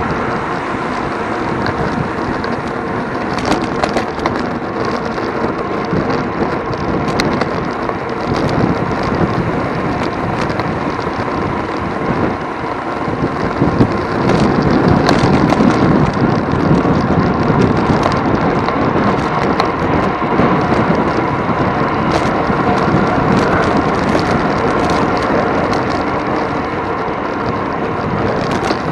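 Loud, steady rumble of a bicycle ridden fast in a race: wind buffeting and road rattle with scattered sharp ticks, getting louder about halfway through.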